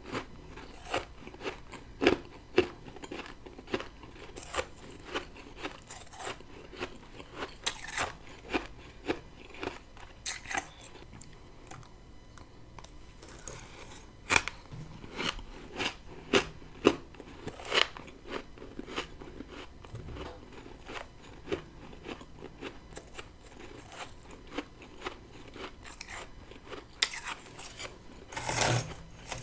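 Close-up crunching and chewing of powdery freezer frost, made of frozen humidifier moisture scraped from a deep freezer. Sharp, irregular crunches come bite after bite, with a short lull in the middle and a louder cluster of crunches near the end.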